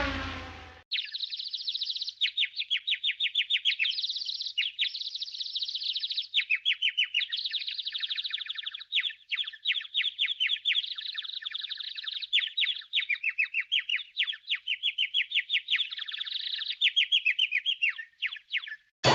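A bird singing in long runs of rapid, high, quick-falling chirps, phrase after phrase with short breaks. It opens with the tail of a falling pitched sound that cuts off under a second in.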